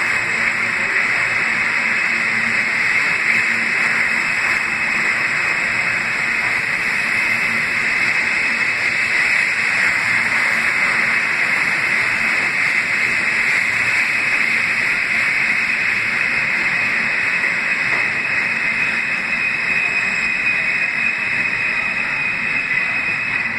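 Eight-car R160A subway train passing along the platform: a steady, loud rush of steel wheels on rail and car running gear, easing slightly near the end as the last car pulls away.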